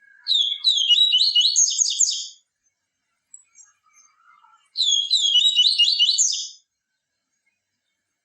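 A papa-capim seedeater singing two fast phrases of rapid, high chirping notes, each about two seconds long, with a pause of about two seconds between them.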